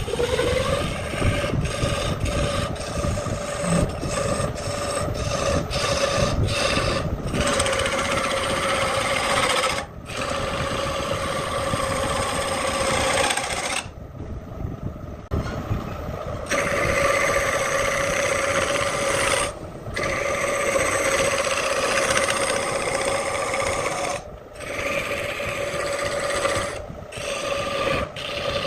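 Belt-driven wood lathe spinning up and then running with a steady hum, while a hand-held turning tool cuts the spinning wooden disc with a rough scraping. The cutting stops in short gaps as the tool is lifted off, the longest about halfway through.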